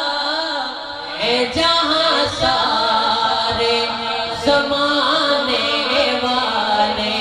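A male voice singing a naat, the salawat refrain in praise of the Prophet, unaccompanied and amplified, in long drawn-out melodic phrases that bend and hold on each syllable.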